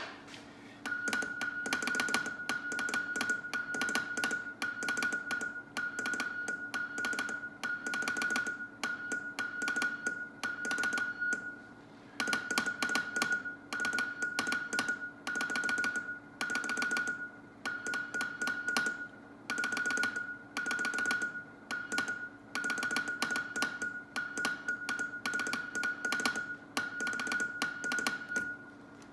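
Morse code sent on the hand key of a 1942 SOE Type 3 Mk II spy radio: a single high tone keyed on and off in dots and dashes, with a sharp click on each key stroke, over a steady low hum.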